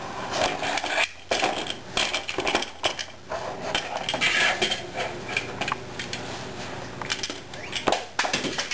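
A hard plastic baby toy being banged and rattled on a plastic high chair tray: a busy run of sharp knocks and clatters.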